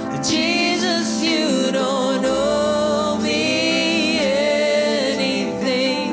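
A woman sings a slow worship song into a microphone over sustained keyboard chords. Her voice wavers with vibrato on long held notes.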